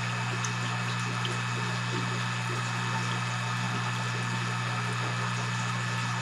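Steady low hum of a fish-room pump running, with an even hiss over it.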